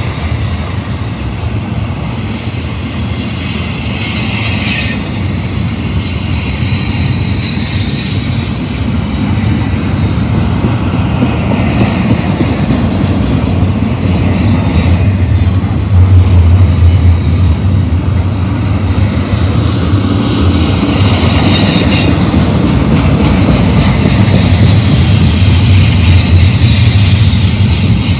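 BNSF double-stack intermodal freight train passing close by on curved track: a steady rumble of steel wheels on rail that grows louder about halfway through, with high-pitched wheel squeal coming and going.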